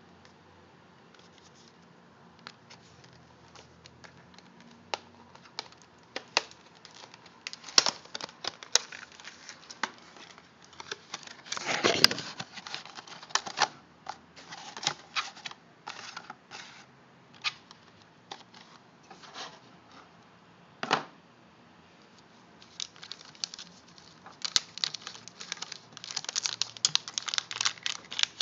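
Hands opening a retail cardboard box: scattered clicks and scrapes, a longer rasp about twelve seconds in, then dense crinkling of a foil anti-static bag near the end.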